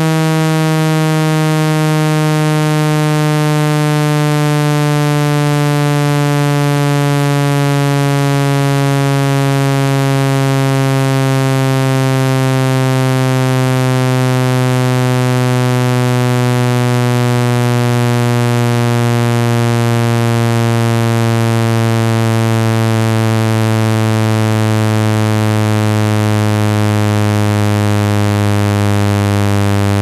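Synthesized speaker-cleaning tone, meant to shake water and dust out of a phone speaker: a loud, low buzzing tone rich in overtones, slowly falling in pitch throughout.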